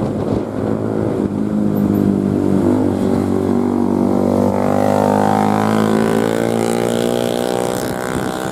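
Tour bus's basuri telolet horn sounding one long, loud multi-note chord, its pitch bending slightly in the middle.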